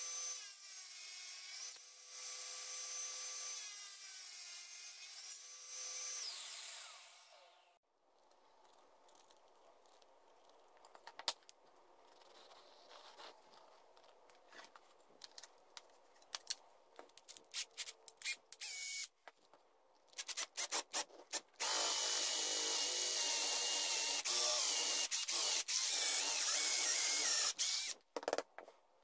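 Small benchtop table saw running and cutting plywood, then shutting off about seven seconds in. After a quiet stretch of faint ticks, a power drill bores into the edge of a wooden block for about six seconds near the end, the loudest part, and stops abruptly.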